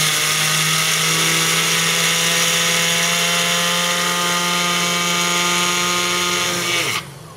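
Small personal blender running steadily, its blade grinding panko breadcrumbs to a fine powder. It is switched off near the end, and the motor whine falls as it winds down.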